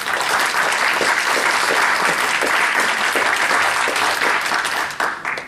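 An audience applauding: many hands clapping in a loud, dense patter that thins out and stops near the end.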